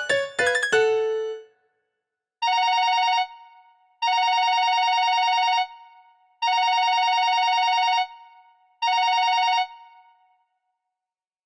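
ZTE R225 mobile phone ringtones. A melodic ringtone ends on a held note in the first second and a half. After a short gap, an electronic telephone-style ring of two steady tones sounds in four bursts: short, long, long, then short.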